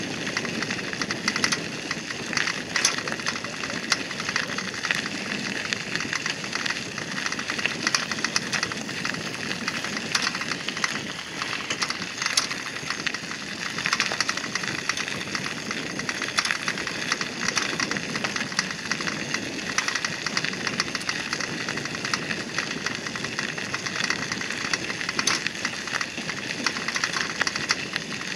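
Bicycle tyres rolling over a gravel path: a continuous crunching crackle with small irregular clicks and rattles.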